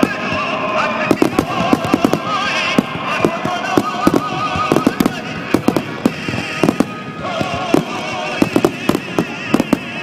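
Aerial fireworks bursting in quick succession: many sharp bangs, irregularly spaced, several a second at times, over a continuous rumble and crackle of the display.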